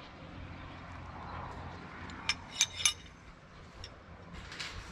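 Three sharp metallic clinks in quick succession about two and a half seconds in, each with a brief ringing tone, over a faint steady background.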